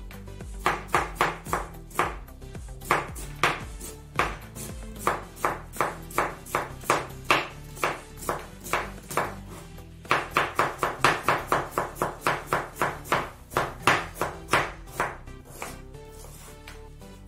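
Chef's knife slicing through a cabbage onto a wooden cutting board: quick, sharp strokes several a second in long runs with brief pauses, dying away near the end. Background music plays underneath.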